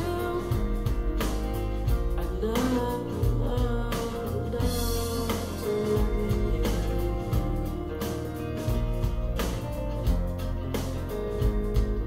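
A song with singing over guitar, bass and a steady beat, played back through Canton GLE 436 bookshelf speakers and recorded in the room by camera and recorder.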